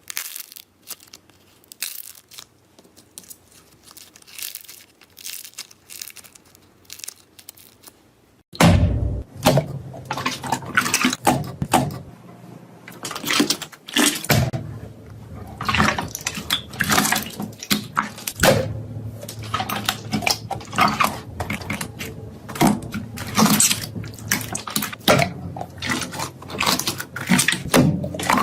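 Slime being squeezed and pressed by hand: quick wet clicks and pops. About eight seconds in it gives way to a louder, denser run of squelching and popping.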